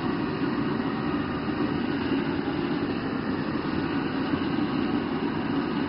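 Steady low roar of a commercial kitchen's gas wok burners and range extraction hood, running without a break.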